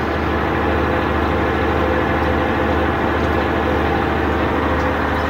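A fishing boat's inboard diesel engine running steadily: a constant low drone with an even hum.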